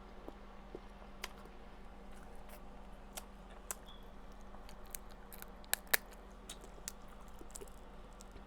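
Crab leg shells being cracked and picked apart by hand: scattered sharp clicks and snaps, the two loudest close together about six seconds in, over a faint steady hum.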